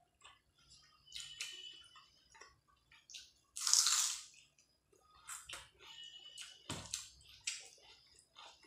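Close-miked eating sounds of a person eating curry and rice by hand: wet chewing, lip smacks and small clicks. About three and a half seconds in comes one louder, hissing noise of under a second, and near seven seconds a dull thump.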